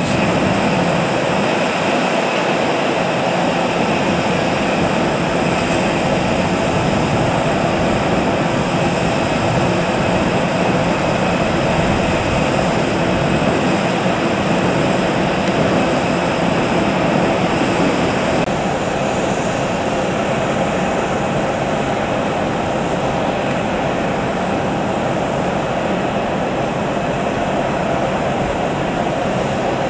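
Steady jet aircraft noise at an airport: a constant rushing hum with a faint high whine over it, easing slightly about two-thirds of the way through.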